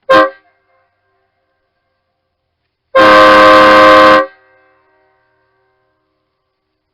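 United Pacific 46115 air-powered train horn sounding its chord: a short blast right at the start, then a longer blast of just over a second about three seconds later. Each blast is followed by a faint echo.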